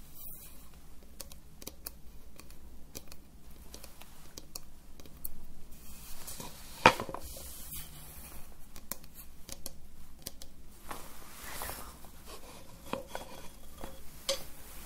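Small objects handled close to the microphone: a run of light clicks and scrapes, with one sharp tap about halfway through.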